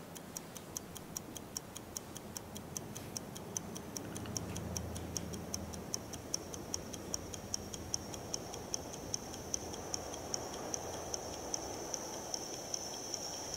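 Wristwatch ticking steadily, a few sharp ticks a second, over a faint low hum.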